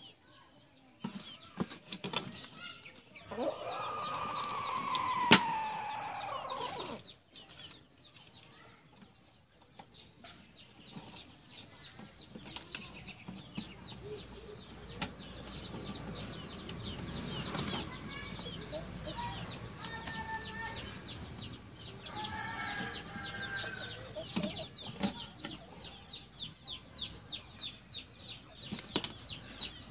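Chickens clucking, with a rooster crowing once about three seconds in, a long call that falls in pitch, and a sharp tap near its end. From about halfway on, short clucks sound over a fast, steady ticking rasp in the background.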